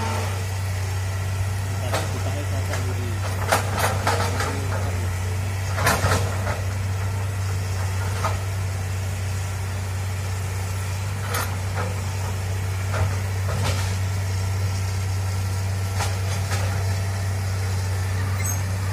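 Hitachi hydraulic excavator's diesel engine running with a steady low drone as the machine works, with scattered sharp knocks and cracks every few seconds.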